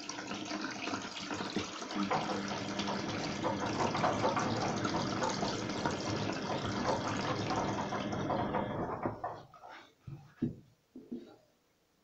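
Water poured from a bottle into a washing machine, running and splashing steadily, then tapering off about nine seconds in, with a few faint knocks near the end.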